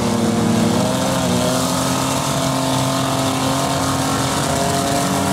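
Engines of battered demolition derby minivans running steadily as the vans drive around the arena, the pitch shifting slightly up and down.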